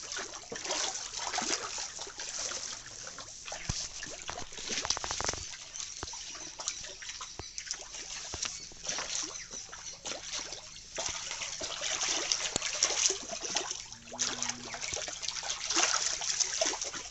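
Fish splashing and churning at the surface of a pond, an irregular run of splashes and sloshing water.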